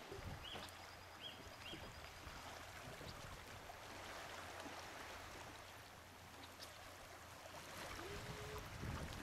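Soft water lapping and trickling against a small aluminium boat's hull, over a faint steady low hum. A few faint high chirps sound in the first two seconds.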